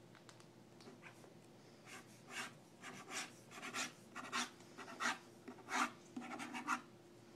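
Quick sketching strokes of a drawing tool on a sheet of paper, about a dozen short scratchy strokes in fast succession, starting about two seconds in.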